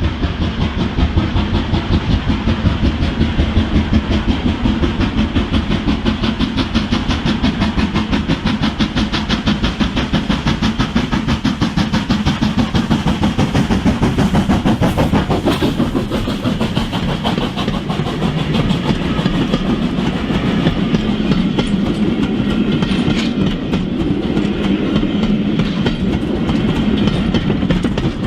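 OO gauge model train running on a model railway layout, with a dense, rapid, even clicking that carries on steadily.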